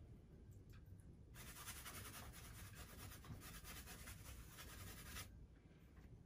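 A wide flat paintbrush scrubbing acrylic paint onto a stretched canvas: a faint, scratchy hiss of quick brushstrokes. It starts about a second and a half in and stops about a second before the end.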